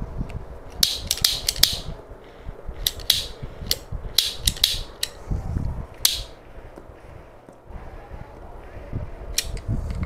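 Irregular clusters of sharp little clicks and clacks of small hard objects being handled, over a low rumble of wind on the microphone.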